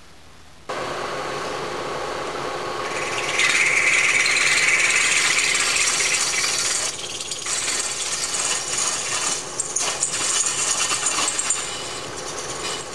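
Milling machine spindle driving a drill bit into a stripped main bearing cap bolt hole in a cast-iron Chevrolet 4.3 V6 block, opening it up for a thread insert. The cutting noise starts about a second in, grows louder with a high whine from about three to seven seconds, then goes on more unevenly.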